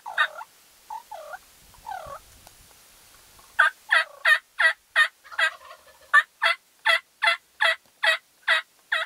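A turkey yelping. There are three short calls in the first two seconds, then from about three and a half seconds in a long, evenly spaced run of about fourteen loud yelps at roughly three a second, with a brief break in the middle.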